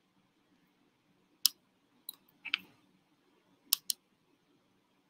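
A handful of short, sharp clicks, about six, spaced irregularly over a few seconds, from someone working a computer to post a link in a video-call chat.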